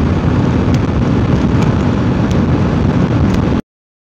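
Wind buffeting the microphone of a motorcycle riding at highway speed, with engine and road noise underneath; the sound cuts off suddenly to silence about three and a half seconds in.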